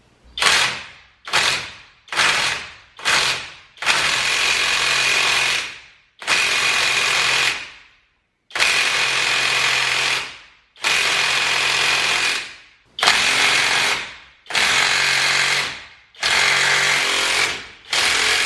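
Impact wrench hammering on a tough nut in repeated trigger pulls: four short blips, then about eight longer bursts of a second and a half to two seconds each, with short pauses between them.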